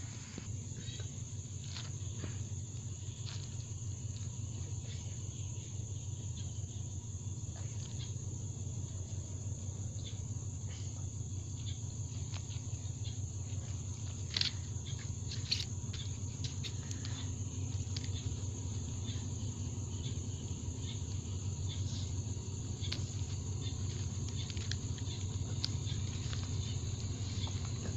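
Crickets chirring steadily over a low, even rumble from a distant approaching diesel train, the rumble growing slowly louder; a few faint clicks about halfway through.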